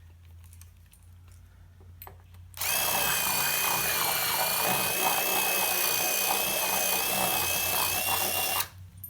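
Power drill running steadily for about six seconds with a high whine, boring or reaming a mounting hole. It starts about two and a half seconds in and stops suddenly near the end. A few faint clicks come before it.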